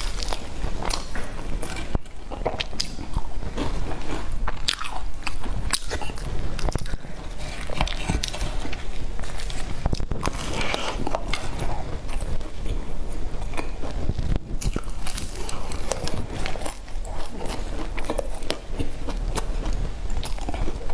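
Close-miked biting and chewing of a flaky pastry cake topped with black sesame, with repeated crisp crunches of the crust.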